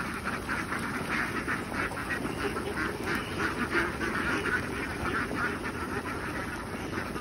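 A large flock of domestic ducks quacking continuously, many calls overlapping in a steady chatter.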